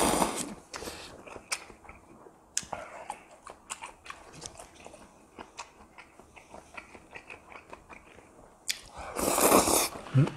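Close-miked eating sounds: a loud slurp from a bowl of instant-ramen broth at the start, then chewing with many small wet clicks and crunches, and another loud slurp-like burst about nine seconds in.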